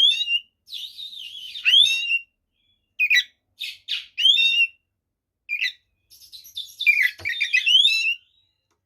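Oriental magpie-robin (kacer) in full fighting song: phrases of varied rapid chirps and rising whistles, broken by short pauses. It is the aggressive song used as a lure to provoke other male magpie-robins.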